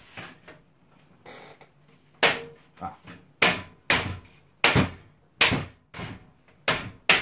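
A PC case's side panel knocking and rattling against the case frame as it is worked loose: a series of about nine sharp knocks, roughly two a second, starting about two seconds in.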